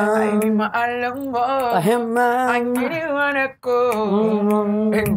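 One voice singing unaccompanied, holding long melodic notes that bend in pitch, with short breaths about a second in and near the middle.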